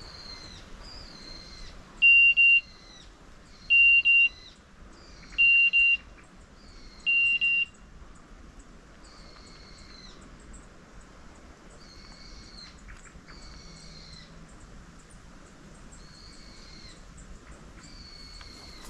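Four loud, steady electronic beeps about 1.7 s apart, in the pattern of a hunting dog's beeper collar. A fainter repeated chirp that slides down in pitch carries on under and after the beeps.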